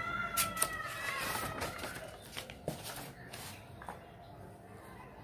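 Paper workbook pages being turned and handled by hand, with soft rustles and a few light clicks. At the start a high, drawn-out call of unknown source lasts about two seconds, slowly falling in pitch.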